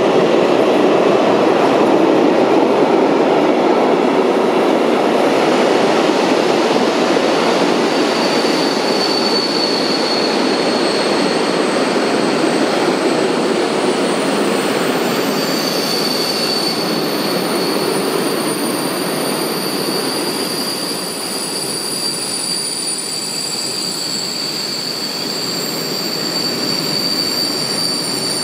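A train running along the platform, its rumble slowly easing, with a high, steady wheel squeal that sets in after several seconds and holds.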